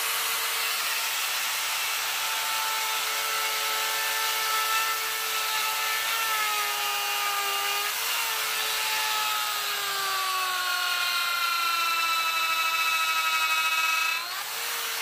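An electric Makita power carving tool whines at high speed as it cuts into wood. Its pitch sags while the cutter bites in, then sweeps up sharply near the end as the load comes off.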